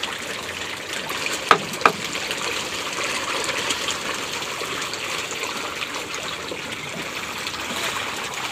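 Water splashing and churning as a packed shoal of pond fish thrashes at the surface for feed. Two sharp clicks come about a second and a half in.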